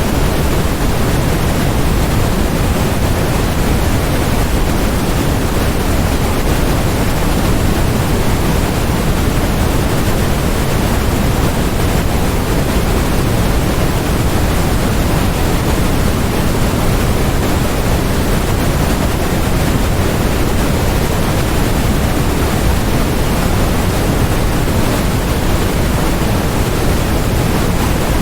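Continuous generated white noise: an even, unchanging hiss across the whole range, with more weight in the low end.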